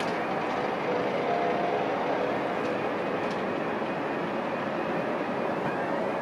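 Steady airport apron ambience: a continuous rush of distant aircraft engines and ground equipment, with faint humming tones that come and go in the first half.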